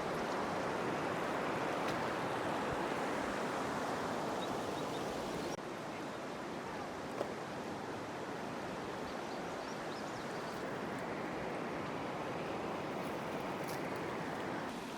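Steady rush of the Cache la Poudre River's flowing water, an even noise with no pitch. It drops slightly in level at an abrupt cut about five and a half seconds in.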